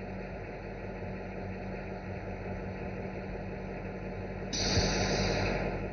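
Off-road haulage truck's diesel engine idling steadily, heard from inside the cab. About four and a half seconds in, a loud hiss starts suddenly and lasts just over a second, while the controls are being function tested.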